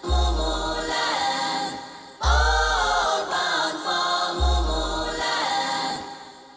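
Background music: a choir-like chant over deep drum hits about every two seconds, fading out near the end.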